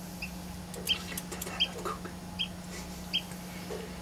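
Newly hatched chick peeping: five short, high-pitched peeps, about one every 0.7 seconds, over a steady low hum.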